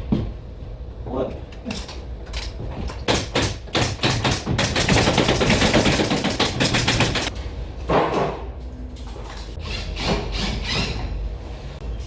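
Pneumatic nail gun (tacker) firing a rapid series of shots, densest in the middle of the stretch.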